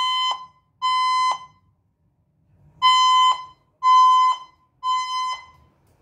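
Fire alarm voice-evacuation speaker sounding the temporal-three evacuation tone, a steady high beep about half a second long. Two beeps end one group of three, then after a pause of about a second and a half comes a full group of three, the standard pattern that signals occupants to evacuate.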